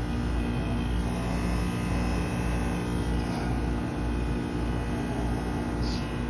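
2008 Trane XR13 heat pump running in defrost mode: a steady compressor hum made of many steady tones over a low rumble, with refrigerant hissing through it.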